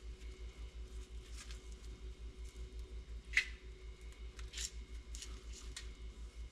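Seasoning being shaken from its container onto raw fish: a few brief, soft, scattered shaking sounds, the clearest about three and a half seconds in, over a steady low pulsing hum.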